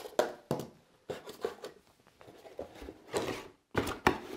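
Cardboard packaging being handled: short scrapes, rustles and light knocks as the inner paper case is opened and the metal router lifted out, with a sharper knock near the end.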